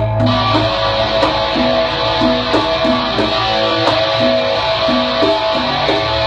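Rock music: electric guitar playing a repeating riff over drums, with the full band coming in just after the start.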